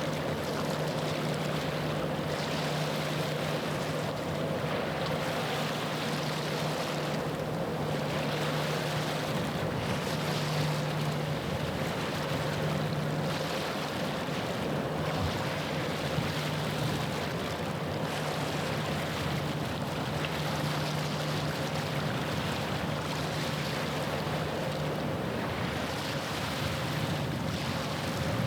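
A passing ship's diesel engine drones steadily and low, over a constant wash of water and wind that swells gently every couple of seconds.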